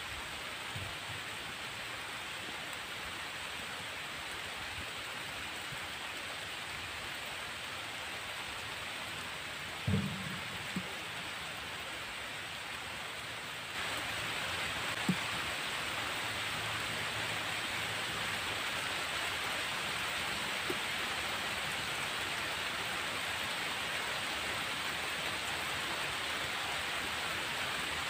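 Steady rain falling, growing louder and heavier about halfway through. A brief low thump sounds about a third of the way in.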